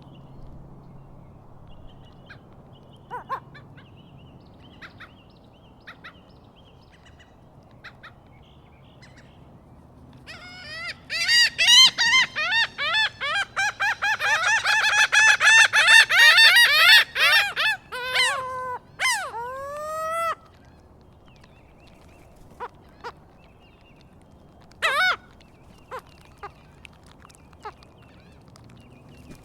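Seagulls calling. Faint short calls are scattered through the clip. About ten seconds in, one bird starts a loud, fast run of repeated calls that lasts about seven seconds, followed by a few longer, falling calls.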